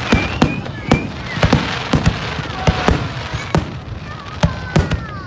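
Fireworks display: a fast, irregular run of sharp bangs from bursting shells, with crackling around the middle and thin whistles falling in pitch.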